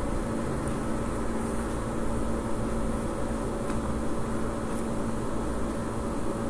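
Steady background hum and hiss with no speech: a low hum carrying a few steady tones. Two or three faint clicks come through it.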